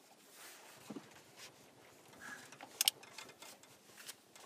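Faint metal clicks and scrapes of a bolt being handled and fitted at an engine pulley, with a low knock about a second in and two sharper clicks a little before three seconds in.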